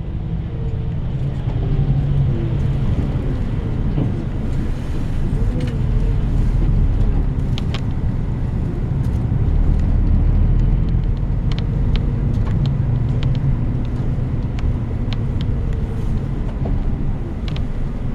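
Cabin noise inside a route bus: its engine running with a steady low rumble that swells and eases, and scattered small clicks and rattles.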